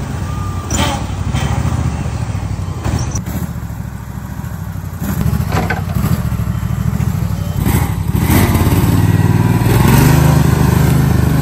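Small engine of a remote-controlled rover built from an old lawn mower, running steadily as it drives, with a few knocks. It grows louder about eight seconds in.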